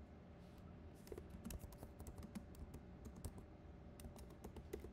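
Faint keystrokes on a computer keyboard, typed in quick irregular runs as a short line of text is entered, starting about a second in.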